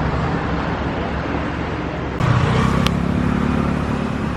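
Street traffic: vehicle engines running, with a louder engine hum coming in about two seconds in as a vehicle passes close by.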